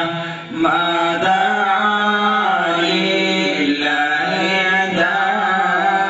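Melodic vocal chant: a voice holds long, steady notes in phrases, with a short break about half a second in.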